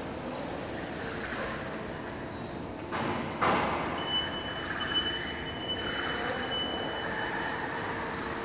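Joloda Trailerskate automatic loading system running steadily as it moves racks of tyres along its floor rails, with a short loud burst of noise about three seconds in and a thin high steady tone from about four to seven and a half seconds.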